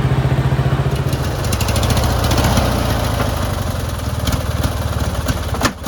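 Riding lawnmower's small engine running with a rapid, even pulse. About a second in, its note drops a little and a rougher noise joins it.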